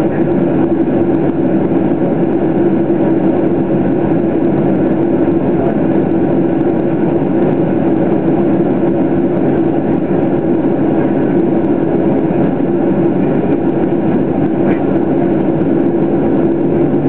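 Boeing 737-800's CFM56-7B turbofan engines idling, heard from inside the passenger cabin as a steady hum with a low drone, while the aircraft sits lined up on the runway before the takeoff roll.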